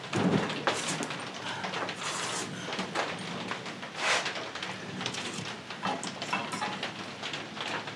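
Dana 44 closed-knuckle steering knuckle and brake rotor being handled and turned over on a cardboard-covered workbench: metal scraping and shifting, with a few dull clunks.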